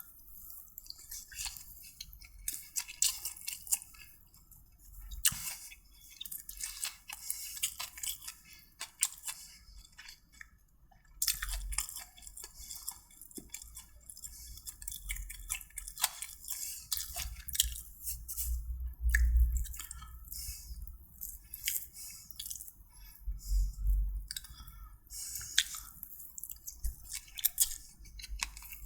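Close-miked eating: a person chewing food with irregular wet mouth clicks and smacks.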